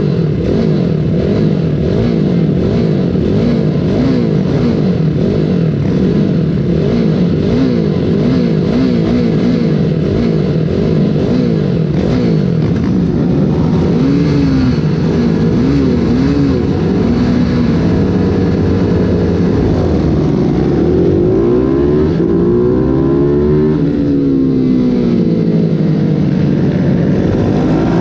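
Mini GP 140 race bike's engine heard from onboard, with the throttle blipped over and over so the revs rise and fall quickly. About two-thirds of the way through, the revs begin to climb and drop in longer sweeps as the bike pulls away and shifts.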